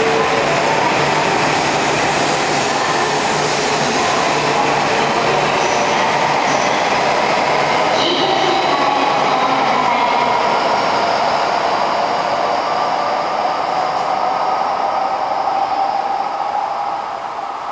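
Tohoku Shinkansen bullet train running through the station without stopping: a loud, steady rush of wheels and air with a faint whine. It fades as the train moves away near the end.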